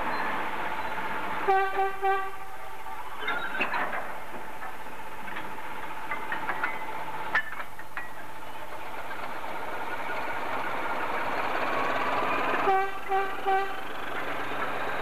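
Freight train of tank wagons running slowly past, with a steady whine and occasional clanks from the wagons. A diesel locomotive's horn gives three short toots about a second and a half in, and three more near the end.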